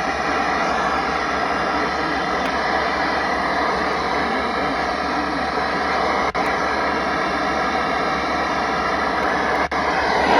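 Steady hiss and hum of a noisy radio broadcast, cutting out for an instant twice.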